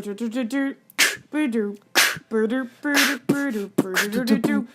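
Vocal beatboxing: a voice sings a bouncy tune in short pitched syllables, punctuated by a sharp hissing snare-like mouth sound about once a second.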